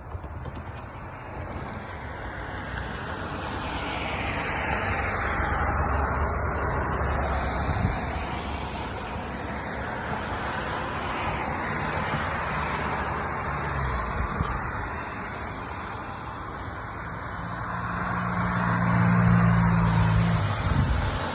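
Road traffic passing one vehicle after another, each tyre-and-engine noise swelling and fading away. The last pass, near the end, is the loudest and carries a low engine hum.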